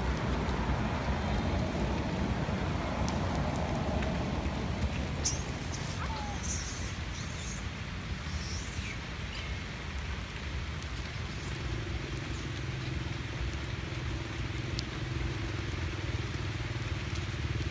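Steady low rumble of vehicle engines, with a steady engine hum setting in about eleven seconds in. A few brief high chirps around five to seven seconds in.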